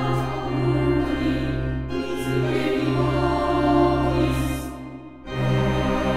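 Background music with choir-like voices holding long notes, breaking off briefly about five seconds in.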